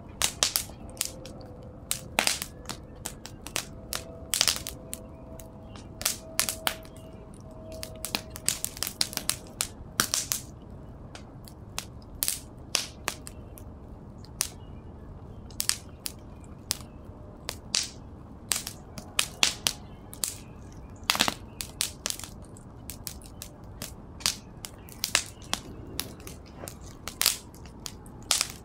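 Open fire of burning painted canvases and their wooden stretcher frames, crackling with many irregular sharp pops over a low, steady rush of flame.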